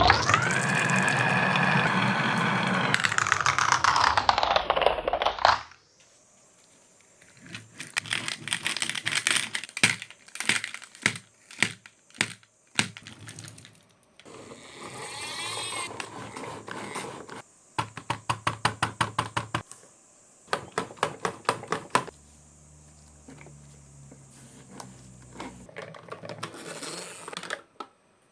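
Marbles running through a wooden marble run: a loud rolling whirr, with pitch sweeping down and back up, that cuts off suddenly about five seconds in, followed by rapid series of clicks and clacks as marbles drop and knock along the track and toy pieces.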